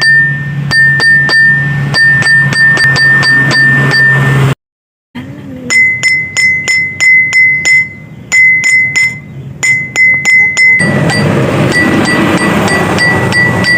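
A drinking glass struck repeatedly, about three to four taps a second, each tap ringing with a clear high note. After a break about five seconds in the note is slightly higher, and it shifts again near the end, as the glass resonates at a different pitch.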